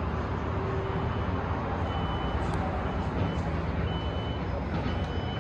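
Steady roar of road traffic below, with a construction machine's reversing alarm beeping about once a second from about two seconds in.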